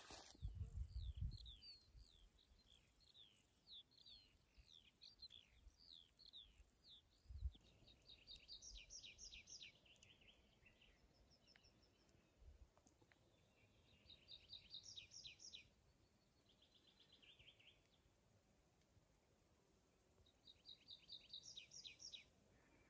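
Songbirds singing: a run of quick down-slurred chirps, then short bursts of rapid trilled notes repeating every few seconds. A few soft low thumps, the sharpest about seven seconds in.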